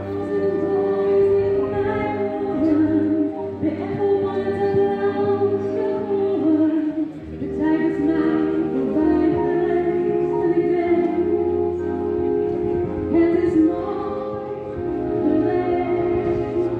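A choir singing a slow song in long held notes, with a steady low accompaniment underneath.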